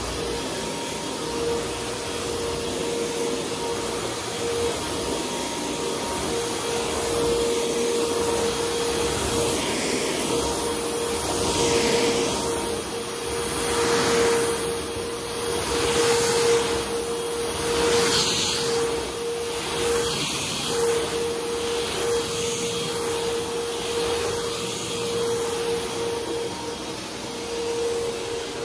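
Hoover WindTunnel upright vacuum cleaner running with a steady motor hum and a mid-pitched whine as it is pushed back and forth over thick carpet. The hiss swells and fades with each stroke, about every two seconds.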